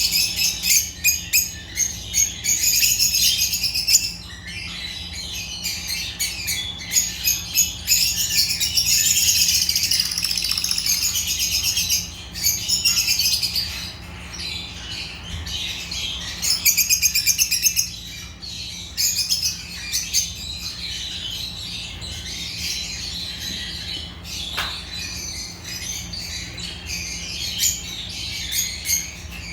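Agapornis lovebirds chirping and chattering: rapid high-pitched chirps running together in busy bursts, thinning to sparser chatter in the second half.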